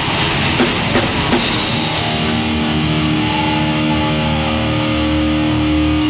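Live rock band playing loud: electric guitars, bass and drum kit. A few sharp drum hits come in the first couple of seconds, then the hits stop and the band holds a long, steady chord.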